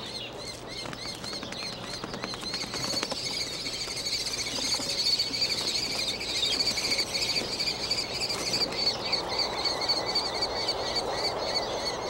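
Kestrel chicks calling, a rapid, continuous high-pitched chittering, typical of nestlings begging for food.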